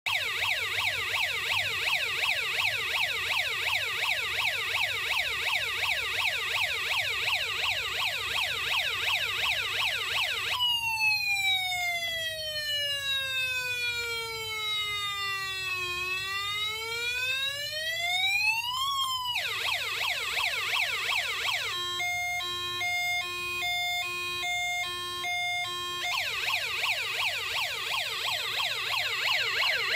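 Electronic siren sounds in sequence: a fast repeating yelp, then one slow wail that falls and rises again before cutting off, a brief buzz, a two-tone hi-lo alternation, and the fast yelp again.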